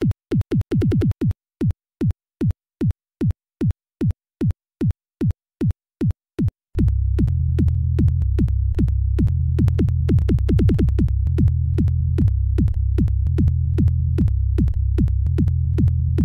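Electronic intro music: a drum-machine kick that drops in pitch on every hit, starting with a quick roll and then beating about two to three times a second, joined about seven seconds in by a steady deep bass line.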